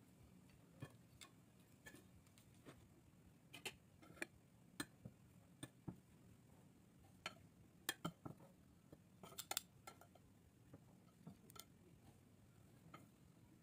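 Faint, scattered clicks and clinks of metal kitchen tongs snapping shut and tapping against a glass baking dish and a ceramic platter as pieces of roast chicken are lifted across.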